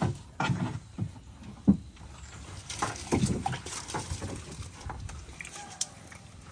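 Knocks on a wooden dugout canoe's hull and splashing in the water at its bottom as a fish is handled and freed from a net. There are several sharp knocks in the first two seconds and a longer spell of splashing and rustling about three seconds in.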